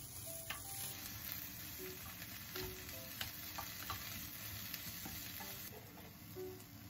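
Leafy greens and carrot strips sizzling as they stir-fry in a frying pan, with a wooden spatula scraping and knocking against the pan a few times as it stirs them.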